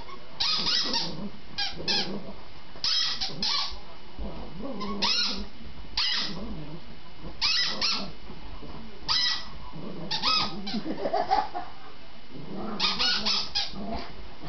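Dogs playing and giving short yips and whines in bursts every second or two.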